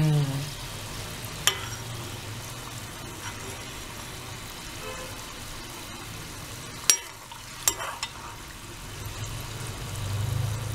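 Chana dal deep-frying in hot oil in a kadai on a low flame, giving a steady bubbling sizzle. A slotted steel ladle clicks against the pan three times, twice close together in the second half.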